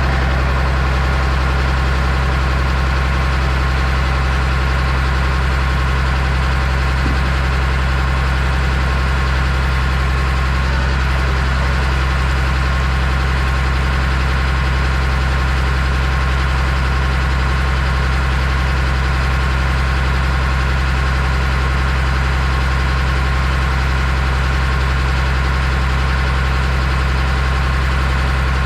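A vehicle engine running steadily at one constant low pitch, with no revving or change throughout.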